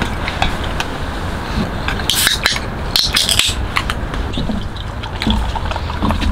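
Eating utensils and food containers being handled at a table: small clicks of chopsticks against dishes and two short rustling bursts, over a steady background hiss.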